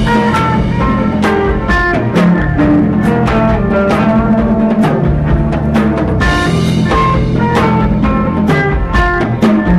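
Post-rock band playing live: a drum kit keeps a steady beat under repeating melodic instrumental lines over a held bass note.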